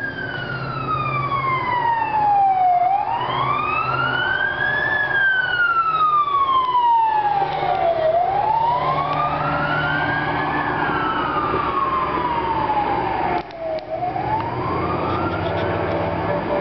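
Emergency vehicle siren on a slow wail, its pitch sliding down over about three seconds and climbing back over about two, repeating nearly three times.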